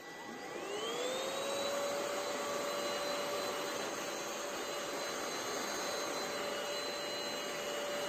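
SwissThomas X4896R cordless stick vacuum's brushless motor spinning up as it is switched on, its whine rising in pitch over the first second or so, then running steadily while the floor head is pushed over a rug.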